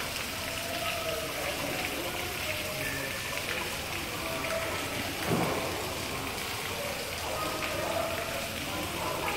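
A steady, rain-like rushing hiss, with one brief louder rustle about five seconds in.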